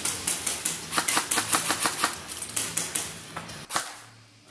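Airsoft rifles firing indoors: a rapid, irregular string of sharp snapping shots, several a second, that stops near the end.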